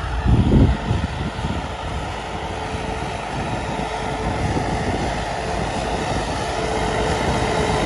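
John Deere 5210 tractor's diesel engine running steadily under load while pulling a cultivator through tilled soil, a steady drone that slowly grows louder as the tractor comes closer. A gust of wind hits the microphone about half a second in.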